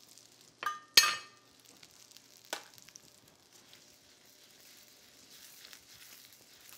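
Shallots sizzling faintly in butter in a stainless steel sauté pan. A metal spoon clinks sharply against the pan twice about a second in, the second clink louder and ringing briefly, and there is a lighter clink near two and a half seconds.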